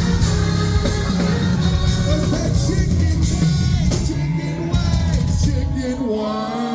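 Live soul-pop band and singer playing the closing bars of a song. The drums and cymbals drop away about four seconds in, leaving the band's lower notes and the voice to ring out.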